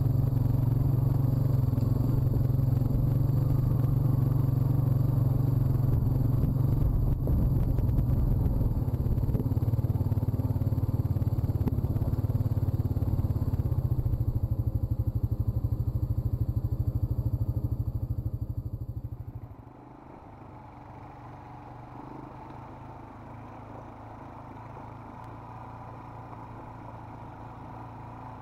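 Honda quad's single-cylinder four-stroke engine running steadily close up while riding over rough ground. About two-thirds of the way through, the sound falls away to the fainter engine of a second quad riding some way off.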